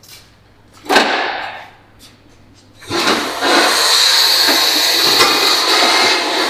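Car lift being lowered: a short burst of noise about a second in, then a steady, loud rushing hiss from about three seconds in as the lift lets the vehicle down.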